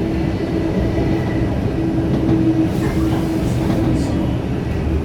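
Electric train's traction motors and wheel gears growling in a steady, loud tone over the rumble of the wheels on the track. The growl comes from badly worn traction motors and/or gears, much louder than the hum these helical gears should make.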